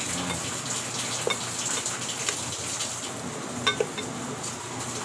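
Cooked string beans and corned beef in sauce sliding and splashing from a metal pan into a ceramic bowl, over a steady hiss, with a few light clinks, the clearest near the end.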